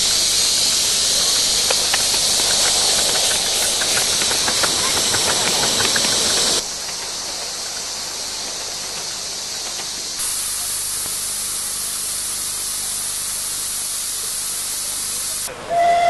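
Miniature live-steam locomotive hissing steam steadily, with a run of light clicks a few seconds in. The hiss drops abruptly about six and a half seconds in and comes back around ten seconds.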